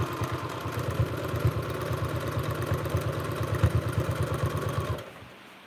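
Electric home sewing machine stitching at speed: the motor hum under a fast, even rhythm of needle strokes, which stops abruptly about five seconds in.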